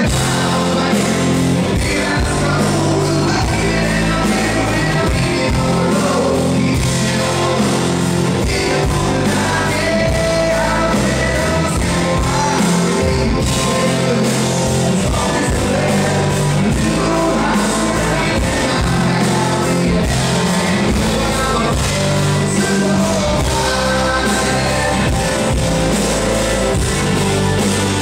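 Live country-rock band playing at full volume: a male lead vocal over strummed acoustic guitar, fiddle, electric guitar and drums keeping a steady beat, heard from the audience in a large hall.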